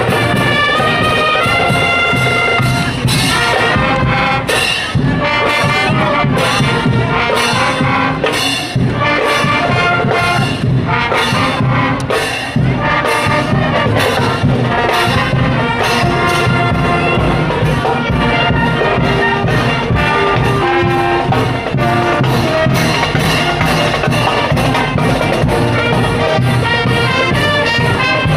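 Live brass marching band playing a tune, brass instruments carrying the melody over a regular drum beat.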